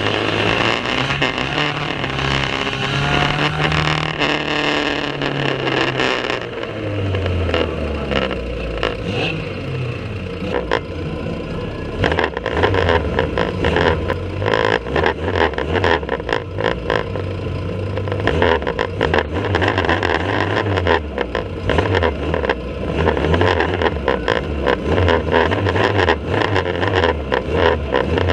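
Banger racing car engines running hard, their pitch rising and falling as they accelerate and lift off, with frequent knocks and clatter over the engine noise from about halfway through.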